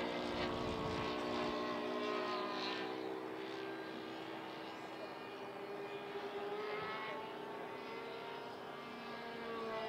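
HSD Super Viper 105 mm electric ducted fan RC jet flying, its fan giving a steady whine that shifts slightly in pitch as it passes. The sound fades a little in the middle and swells again near the end.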